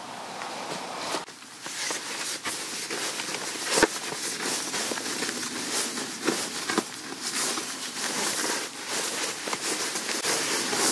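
A small dog digging and scratching at a nylon down sleeping bag: the slick shell crinkles and rustles in quick irregular scrapes, with one sharper snap about four seconds in.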